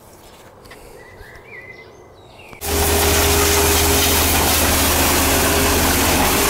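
After a quiet stretch, a steady engine running comes in suddenly about two and a half seconds in, with a low drone under a broad hiss.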